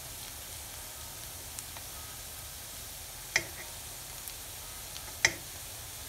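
Seekh kebabs frying in shallow oil in a pan: a steady sizzle, with two sharp pops of spitting oil, one a little past halfway and one near the end.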